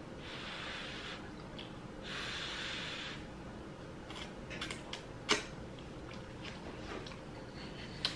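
Quiet close-up eating sounds of a mouthful of spicy noodles: two long breathy sounds in the first three seconds, then scattered clicks and mouth smacks, the sharpest about five seconds in.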